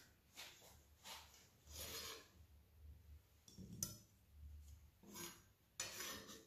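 Faint knife strokes on a wooden cutting board as pineapple slices are diced into small cubes. A sharp clink of the knife blade against a ceramic bowl comes about four seconds in as the cubes are pushed into it.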